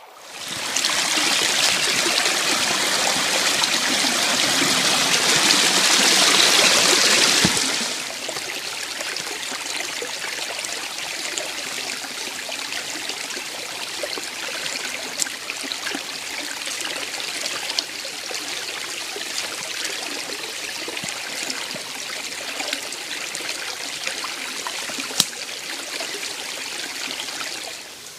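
Small woodland brook running and trickling over stones. The flow is loud for the first eight seconds, then drops suddenly to a quieter, steady rush with a few faint clicks, and fades near the end.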